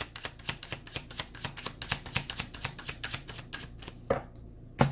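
A deck of Lenormand cards shuffled by hand: a quick, irregular run of card clicks that stops about four seconds in, followed by a couple of separate taps near the end.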